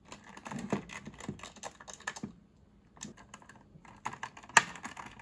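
Small clicks and taps from a screwdriver and plastic parts being handled inside a Haslab proton pack's plastic cyclotron lid, with a short lull a little over two seconds in and a louder knock near the end.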